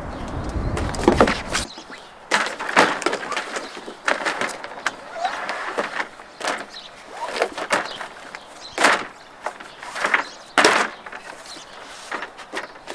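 A folding CIGS solar panel and its cables being handled on a table: a run of short knocks, rustles and clatters as the panel is folded, laid out and plugged in. A low rumble at the start cuts off suddenly after about a second and a half.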